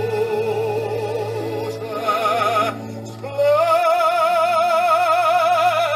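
Background music: a singer holds long notes with a wide vibrato over a steady low bass note. After a brief dip about halfway through, the voice rises to a higher long held note.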